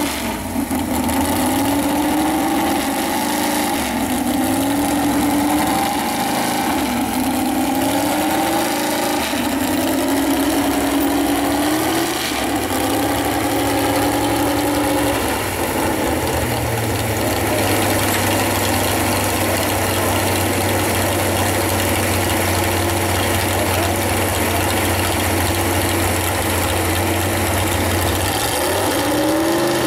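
Engine of a modified pulling pickup with hood stacks revving in repeated rising surges about every two seconds, then holding a steady pitch, and climbing again near the end as the truck launches down the track pulling the sled.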